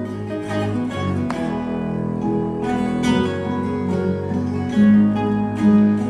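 Acoustic guitar and other string instruments playing a tune, with plucked and strummed notes over a held low line.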